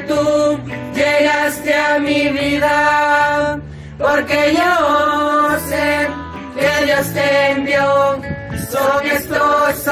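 Young male and female voices singing a song together in long held notes, accompanied by acoustic guitar, with a brief break in the singing about four seconds in.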